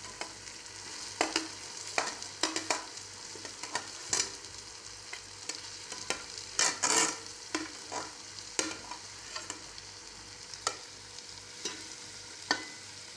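Shredded boiled chicken going into a pot of onion, tomato and ginger-garlic paste frying in oil: a steady sizzle, with scattered clicks and scrapes of a metal spoon against the pot and plate, loudest a little past halfway.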